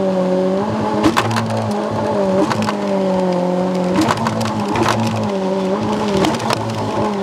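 Outboard motor of a water-jet inflatable boat running hard, its revs dipping briefly and recovering several times, with a few short sharp knocks.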